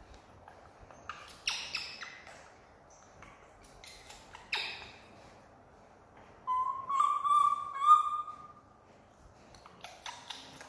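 Macaque calls: a few short, high squeaks falling in pitch, then a longer wavering call of about two seconds, the loudest, about six and a half seconds in, and two more squeaks near the end.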